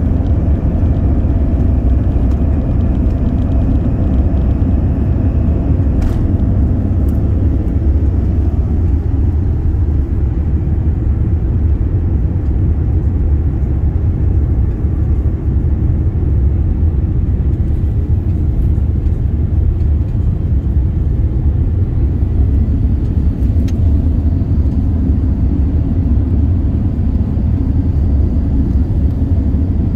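Airliner cabin noise during takeoff and initial climb: a loud, steady low rumble of the jet engines at takeoff power.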